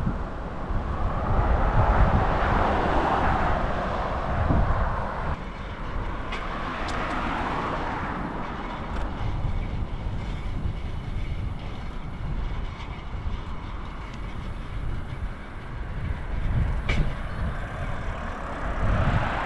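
Road traffic passing, with two vehicles swelling up and fading away, one in the first few seconds and another about seven seconds in, over a steady low wind rumble on the bike-mounted action camera's microphone.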